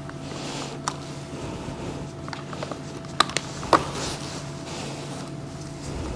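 A replacement main fuse is pushed into a motorcycle's fuse box by gloved hands: several sharp plastic clicks, the loudest about three to four seconds in, with handling rustle between them. A steady low hum runs underneath.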